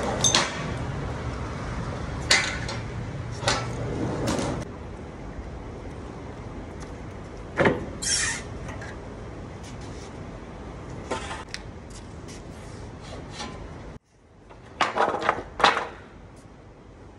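Scattered knocks, clanks and short scrapes from working the side of a loaded curtainsider trailer while securing the load, with a cluster of them near the end. A low steady hum runs under the first few seconds.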